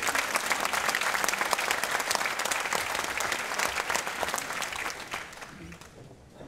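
Concert-hall audience applauding, the clapping thinning and dying away about five seconds in.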